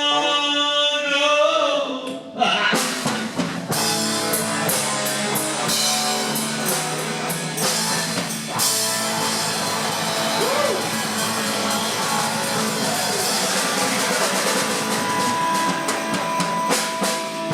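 Live rock band playing an instrumental stretch: drum kit with busy cymbals and electric guitar, after a held sung note dies away in the first second or two.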